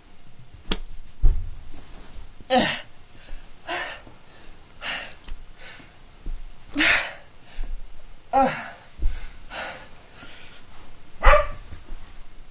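A man's short, strained involuntary cries, each falling in pitch, come every second or two during a seizure, with a few dull thumps of body movement.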